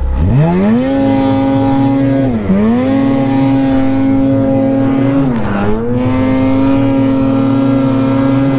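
Ski-Doo 146 mountain snowmobile's two-stroke engine revving up sharply and held at high revs under load in deep powder snow, with two brief dips in revs before it climbs again.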